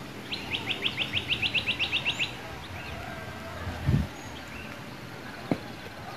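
A bird calling a fast run of about fourteen short, sharp, downward-sliding notes lasting about two seconds. A dull low thump about four seconds in, and a faint click later.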